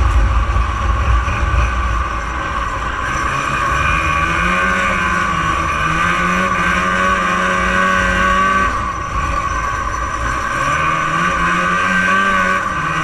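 1989 Arctic Cat Jag 440's fan-cooled two-stroke engine running under throttle as the sled is ridden. Its pitch climbs, holds, and falls back twice as the throttle is opened and eased.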